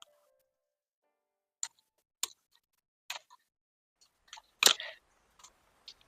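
Plastic basketball-hoop parts being handled during assembly: a handful of short, scattered clicks and knocks, the loudest about two-thirds of the way in.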